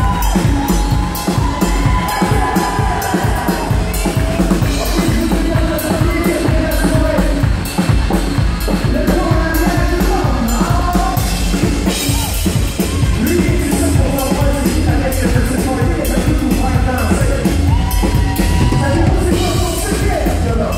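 Live country band playing a song: the drum kit keeps a steady beat under acoustic and electric guitars and a fiddle, with some singing.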